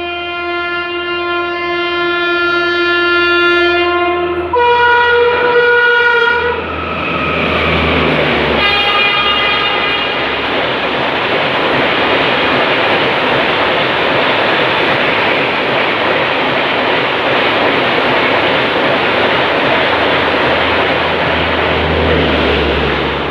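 A WAP-5 electric locomotive's horn sounds long and loud, switches to a different note about four and a half seconds in, cuts off a couple of seconds later, then gives a shorter, fainter note. After that comes a loud, steady rush of the express train's coaches passing at speed.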